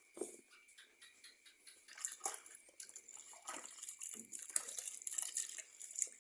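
A cow eating wet feed: irregular wet smacks and clicks of mouthing and chewing, several to a second.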